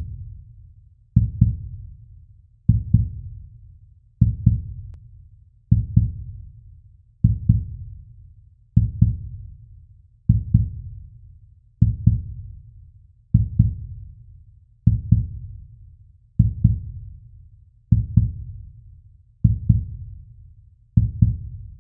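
Slow heartbeat: a low lub-dub double thump repeating steadily about every one and a half seconds, around 40 beats a minute, each beat fading quickly.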